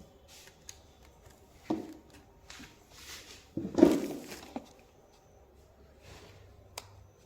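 A few scattered knocks and clicks of hands working a wireless mouse and laptop, with the loudest cluster of knocks about four seconds in and a sharp click near the end.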